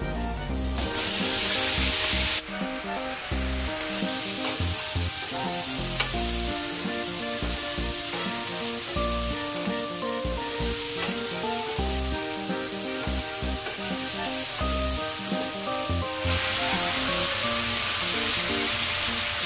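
Stir-fry sizzling in a hot nonstick wok as cabbage hits garlic and chilies in oil, then stirred with a wooden spatula over high heat. The sizzle surges about a second in as the cabbage goes in, and swells again near the end, with background music with a steady beat throughout.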